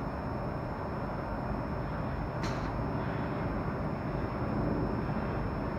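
Dust-filter mesh tube forming machine running steadily as it forms perforated metal mesh into a filter tube, with a faint high whine. A single sharp click about two and a half seconds in.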